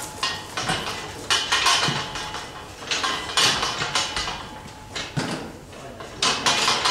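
Clatter and rustling at a steel show-calf fitting chute: several short noisy bursts a second or two apart, with a few light metallic knocks.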